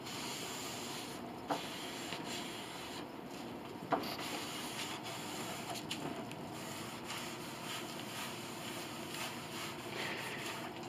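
Cloth rag rubbing a finish across the bare wood of a grand piano soundboard, a steady rubbing with a few sharp light knocks.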